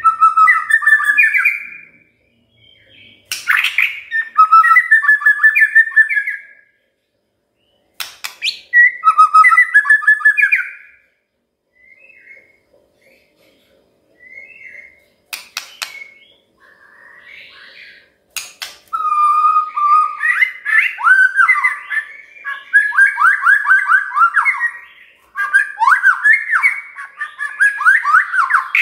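White-rumped shama singing: loud phrases of clear whistled notes, several opening with sharp clicks, come in three bursts, then a few quieter scattered notes. About two-thirds in, a long unbroken run of fast repeated sweeping whistles follows, several notes a second.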